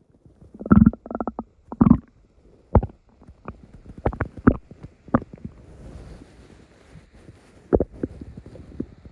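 Human stomach rumbling: a series of short, irregular gurgles and pops, the loudest about one and two seconds in, with quieter crackling gurgles between and another gurgle near the end.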